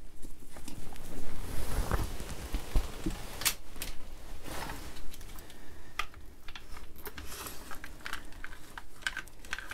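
Hunting gear being handled: clothing rustling with scattered sharp clicks and knocks as a crossbow and its bolts are handled, and a few dull bumps in the first few seconds.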